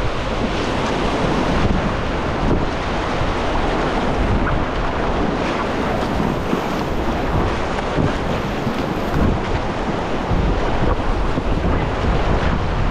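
Whitewater rushing and churning through a river rapid, heard close up from a packraft riding through it, with paddle strokes splashing and wind buffeting the microphone.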